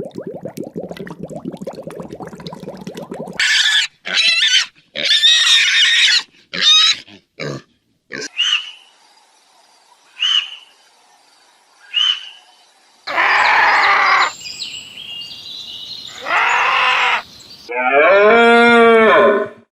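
A sequence of different animal calls. First a rapid low pulsing call for about three seconds, then several loud harsh cries, three short high chirps, and more loud calls, ending with a pitched call that dips and rises.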